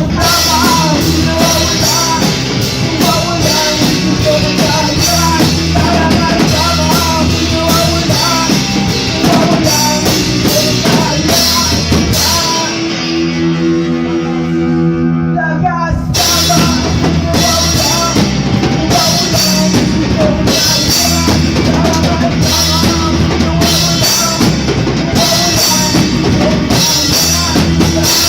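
Band playing rock music: drum kit, guitar and bass. About halfway through, the drums drop out for a few seconds, leaving held chords, then the full band comes back in.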